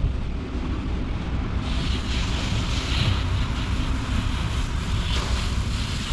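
Concrete mixer truck running with a steady low rumble, while water sprays from a washout hose in hissing surges that swell and fade.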